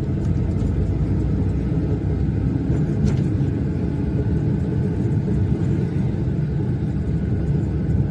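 Steady low rumble of a goods pickup truck's engine and tyre noise, heard from inside the cab while it drives along a rough road.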